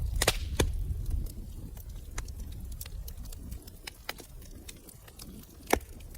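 Wood fire crackling in a fireplace, with irregular sharp pops and snaps; one of the loudest pops comes near the end. A low rumble of the burning fire fades out about a second in.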